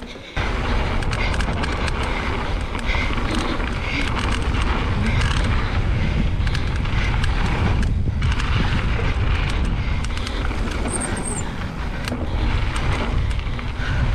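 Mountain bike riding fast down a dirt flow trail: wind rushing over the microphone with a deep rumble, and tyre noise with many short rattles and clicks from the bike over bumps. There is a brief lull about eight seconds in.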